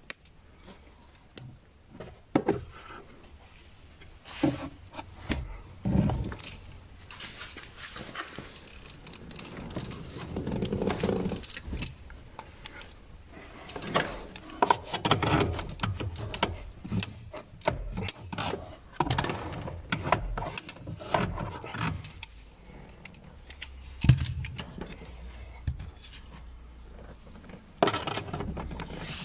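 Plastic dashboard trim of a Renault Twingo being handled and worked by hand, giving irregular clicks, knocks and scraping, with the sharpest knock about three-quarters of the way through.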